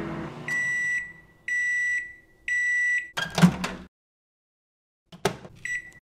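Microwave oven's done beeper: three steady high beeps of about half a second each, one a second apart. A brief louder noise follows, then a gap without sound. Near the end come a couple of sharp clicks and one short beep.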